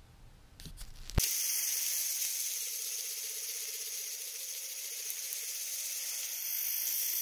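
Faint room tone, then, about a second in, a sudden switch to a steady high hiss of bicycle tyres rolling on wet pavement.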